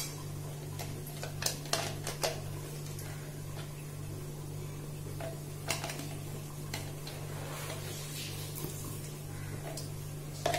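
A steady low hum pulsing about three times a second, with a few scattered light clicks and ticks, mostly in the first couple of seconds.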